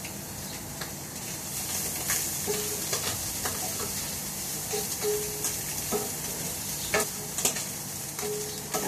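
Tuna frying in oil in a stainless steel pan, sizzling steadily, while a wooden spoon stirs it. The spoon makes scattered knocks and short scrapes against the pan.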